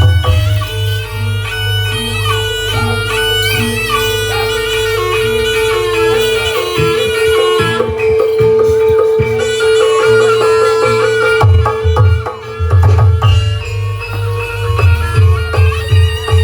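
Traditional Javanese barongan accompaniment music: a reedy wind instrument playing a melody over a steady held note, with drums beating under it that drop out in the middle and come back.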